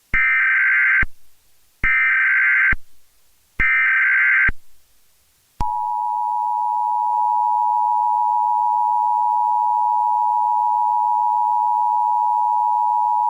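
US Emergency Alert System tones: three short bursts of the SAME digital header data, each just under a second long, then a long steady two-tone attention signal starting about five and a half seconds in.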